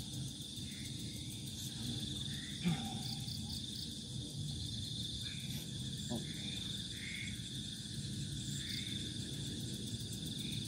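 Crickets chirring steadily in one continuous high-pitched trill, with a couple of faint brief sounds underneath.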